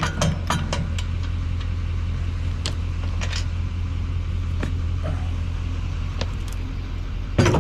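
Diesel Chevrolet Silverado pickup idling steadily, with the last rapid clicks of a trailer tongue jack being cranked ending about a second in and a few scattered clacks after. A loud clunk near the end.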